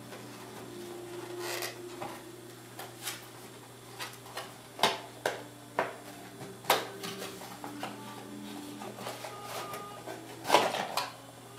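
A small cardboard box being handled and opened by hand: cardboard flaps rubbing and scraping, with scattered taps and knocks, the loudest cluster near the end.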